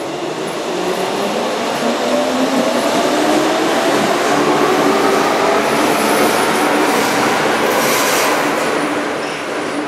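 Hamburg Hochbahn DT3 U-Bahn train pulling out of the station, its motors giving a rising whine over the rumble of the wheels as it gathers speed. It gets louder as it passes and fades near the end as it runs into the tunnel.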